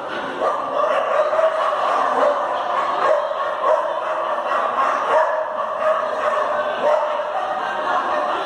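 A dog barking over and over, short barks repeating roughly once or twice a second.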